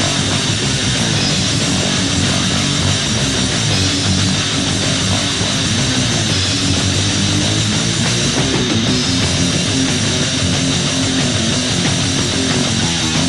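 Heavy metal from a demo-tape recording: a band with distorted electric guitars, bass and drums playing at a steady, loud level.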